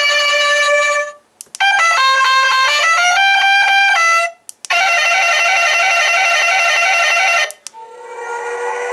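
Mini Hornit bike and scooter sound-effects unit playing its built-in electronic sound effects one after another through its small speaker, each cut off abruptly when the next is selected, with small button clicks in the gaps. A short tune stops about a second in, then a stepping melody plays, then a steady horn-like tone, and near the end a tone rises into a held whistle.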